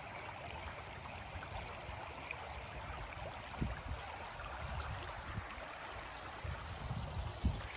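River water flowing: a steady rushing, with uneven low rumbles underneath.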